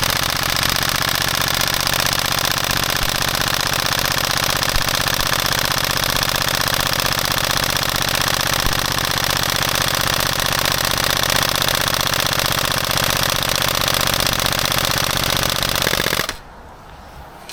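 Airsoft electric rifle firing one long, unbroken full-auto burst as it empties a 250-round spring-fed magazine; the firing stops abruptly about sixteen seconds in.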